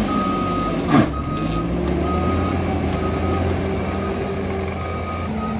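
Skid-steer loader's diesel engine running steadily while its reversing alarm beeps about once a second as the machine backs up. A single sharp knock sounds about a second in.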